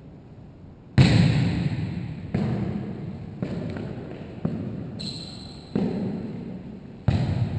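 A volleyball being struck over and over during a rally in a reverberant gymnasium: about six sharp hits roughly a second apart, each ringing on in the hall's echo, the first the loudest.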